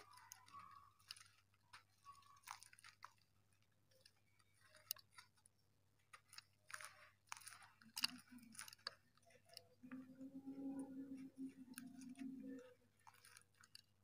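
Faint crackling and crunching of dry dirt-cement lumps crumbled by hand in a plastic basket, with powder falling. A low steady hum comes in for a couple of seconds about ten seconds in.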